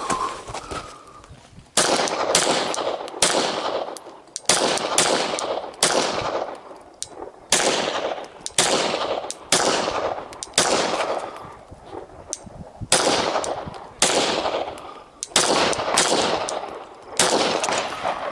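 A string of rifle shots fired during a timed competition stage: about two dozen sharp shots in quick, irregular groups, each trailing off in a long echo.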